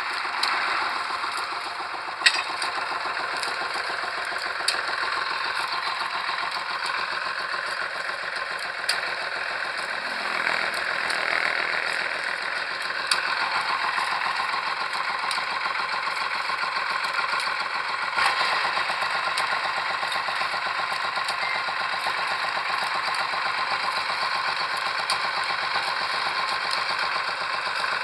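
Engine of a pile-driving rig running steadily, with a few sharp metallic clanks, the loudest about two seconds in.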